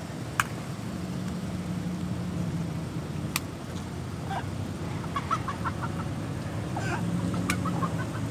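Lowered cars creeping past at low speed: a steady low engine hum, with short chirpy squeaks and a few sharp clicks scattered through.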